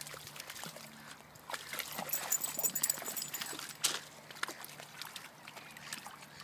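A Jackapoo wading out through shallow sea water, its legs making irregular splashes and sloshing that are busiest in the middle, with one sharp splash about four seconds in.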